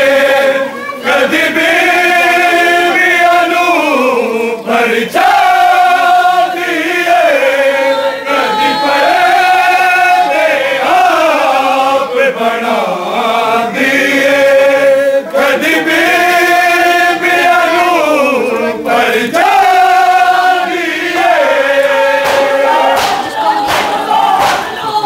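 Many men's voices chanting a mourning lament together: long, held sung phrases that rise and fall, a few seconds each, with short breaks between.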